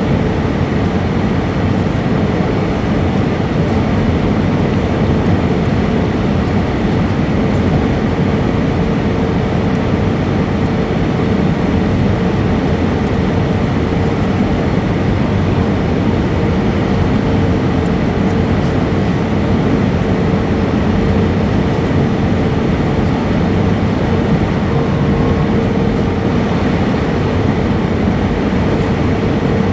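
Steady, loud cabin noise inside an Airbus A320 airliner: engine and airflow noise with a faint steady hum running through it.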